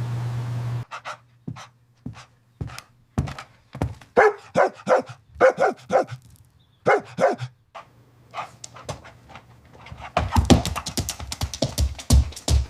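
Golden retriever barking repeatedly, about a dozen short barks in irregular bursts. Near the end, a fast clatter of sharp knocks sets in.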